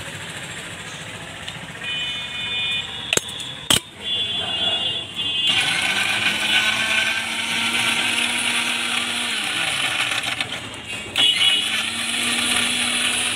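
Electric mixer grinder blending in its steel jar: the motor spins up about five seconds in, runs for several seconds, winds down, then starts again near the end. Before it, a few short high beeps and a couple of sharp knocks.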